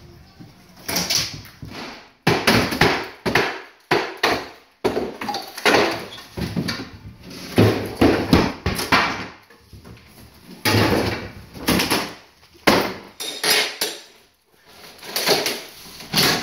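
Irregular knocks, bangs and clatter of wooden boards and hand tools as a house interior is torn apart in demolition.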